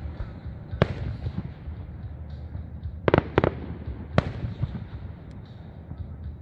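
Aerial fireworks shells bursting: a sharp bang about a second in, a quick cluster of three bangs around three seconds in, and another just after four seconds, over a steady low rumble.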